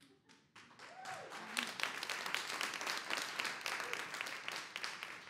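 Audience applauding: dense clapping that builds about a second in and dies away near the end.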